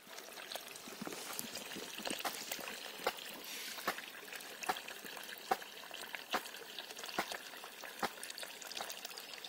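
Groundwater flowing out of a borewell's casing pipe by itself, with no pump running, and trickling and pouring over the ground, with a regular splashing pulse a little faster than once a second. The bore overflows because heavy rains have raised the water table.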